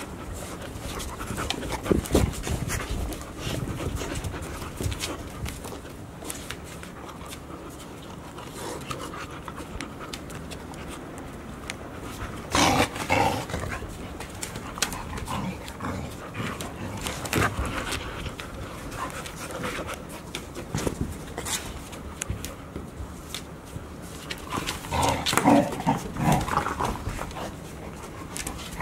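Golden retriever puppies panting as they play, with scattered knocks and scuffs; louder bursts come about halfway through and again near the end.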